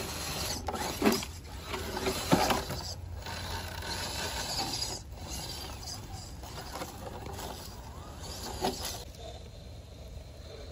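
Radio-controlled scale crawler truck driving over roots and dry leaves: its electric motor and gear drivetrain whir while the tyres crunch through leaves and twigs, with a few sharp knocks as it climbs over the roots.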